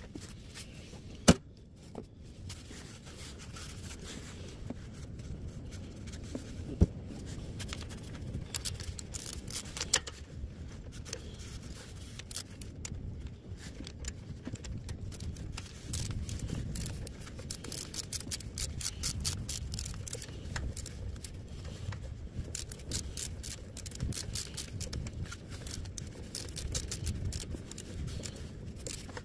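Small metallic clicks and scrapes of a spark plug socket, swivel extension and ratchet being fitted onto a spark plug on a standby generator's engine. There are two sharp single clicks in the first few seconds, then a dense run of quick clicks in the second half.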